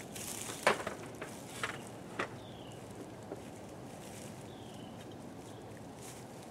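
A few knocks and clunks of beehive equipment being handled, the loudest about a second in as the hive's outer cover is set down on the wooden bench. A couple of short falling bird chirps sound faintly in between.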